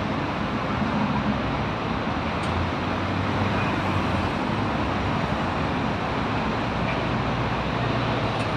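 Steady hum of road traffic in a city street.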